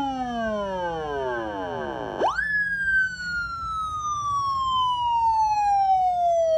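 Police-style electronic siren wailing: a long falling tone, a quick sweep back up about two seconds in, then another slow fall.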